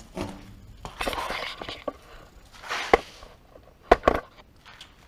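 Handling noise of a large aluminum-faced composite sheet being picked up and moved: rustling and scraping, with a sharp knock about three seconds in and two more close together near four seconds.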